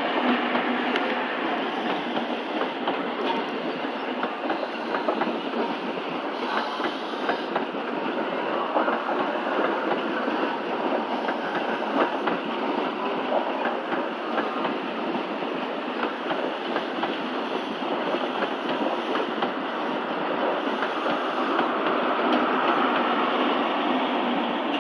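East Coast InterCity 125 (HST) train passing: its Mark 3 coaches rolling by with a steady rumble of wheels on rail and frequent clicks as the wheels cross rail joints and points. It grows a little louder near the end.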